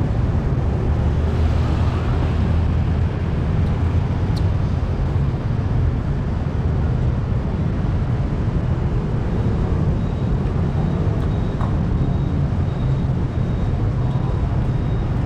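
Steady road traffic noise: a continuous low rumble of vehicle engines.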